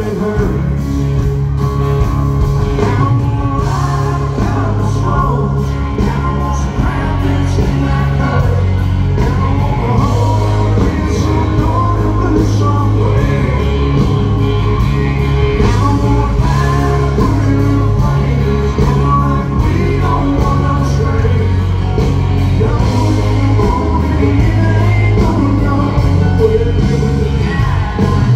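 Live country band playing with a male lead singer, over a steady drum beat and heavy bass.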